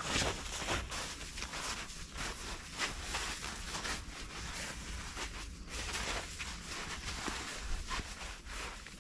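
Footsteps crunching in snow, irregular steps and scuffs as people move about.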